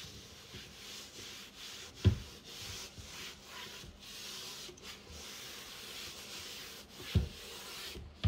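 A cloth wiped back and forth over the bottom of an empty drawer, a steady rubbing in repeated strokes. Two sharp knocks break in, about two seconds in and near the end.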